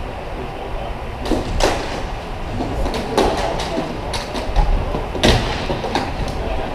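Hockey game play: a scattered series of sharp knocks and clacks from sticks and puck, over a steady low rumble of rink noise.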